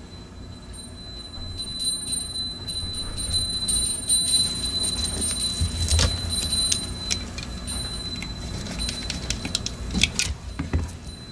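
Small electric air blower running steadily while cleaning the mouse's parts, with a few sharp plastic clicks and knocks near the end as the mouse shell is handled.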